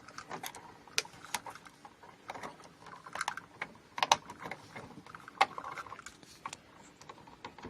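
Irregular clicks and light rattles as stiff electrical wires joined with plastic wire nuts are pushed back into a wall switch box, with a few sharper clicks about a second in, around four seconds and around five and a half seconds.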